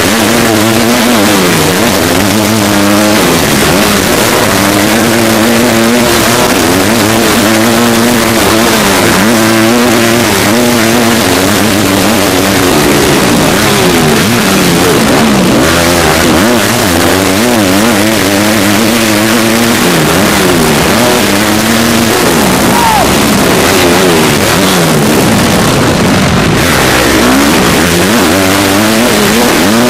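Motocross bike's engine heard close up, revving hard and easing off again and again as it is ridden through the gears.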